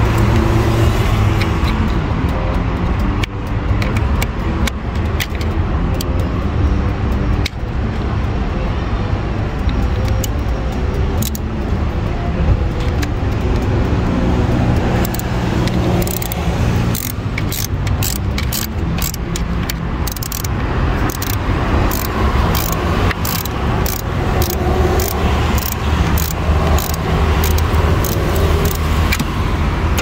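A car engine idling steadily, with many short metallic clicks and taps from hand tools on the battery terminals and hold-down, coming thicker in the second half.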